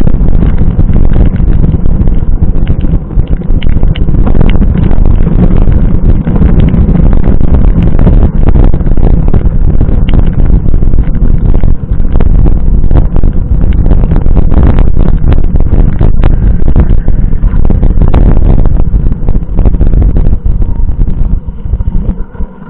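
Wind and rain battering the microphone of a bike-mounted camera during a mountain-bike ride in heavy rain: a loud, distorted rumble with many small knocks and rattles from the ride. It dies down near the end.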